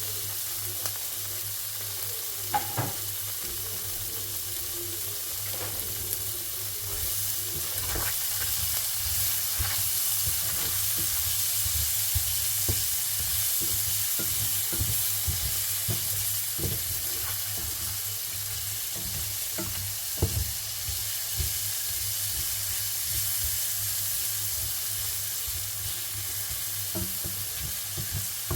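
Food frying in a hot pan with a steady sizzle, while a utensil stirs it and knocks against the pan now and then.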